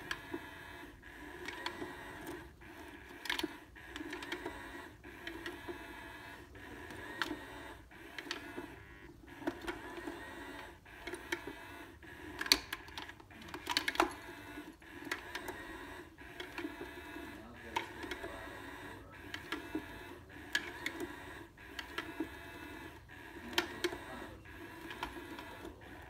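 Battery-powered cat toy's small motor running steadily inside a plastic dome, moving a feather wand in and out of the dome's holes, with irregular plastic clicks and taps throughout.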